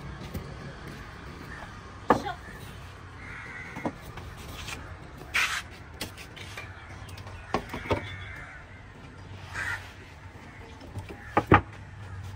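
A machete chopping fish on a wooden table. It gives irregular sharp knocks, the loudest about two seconds in and a double strike near the end.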